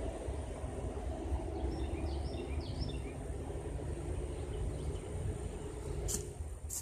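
Steady low engine-like hum, with a few short bird chirps about two seconds in and two sharp clicks near the end.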